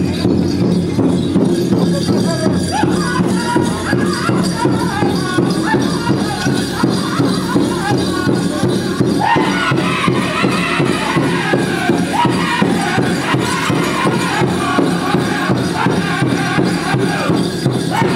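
Powwow drum group singing over a steady, even drumbeat, with the jingling of dancers' leg bells.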